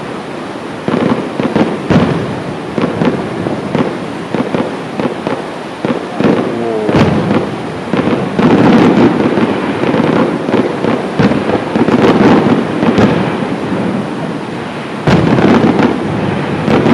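Aerial fireworks display: a rapid run of shell bursts and crackling bangs, growing denser and louder about halfway through and again near the end.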